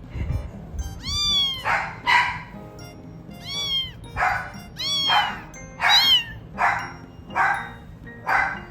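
A kitten meowing over and over, about one call a second. Some are clear cries that rise and fall in pitch, and others are rougher and noisier.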